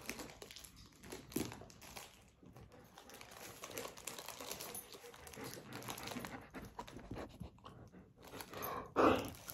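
Clear plastic packaging of a rolled diamond-painting canvas crinkling and rustling as it is handled, in irregular small crackles and clicks. A louder short sound comes about nine seconds in.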